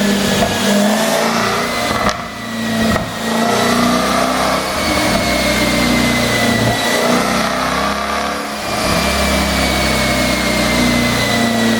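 Jaguar F-Type SVR's supercharged 5.0-litre V8 running under throttle, its exhaust note holding a fairly steady pitch that drifts slowly up and down. About two and three seconds in, the revs briefly drop and sharp cracks come through: exhaust pops from a pop-and-crackle tune.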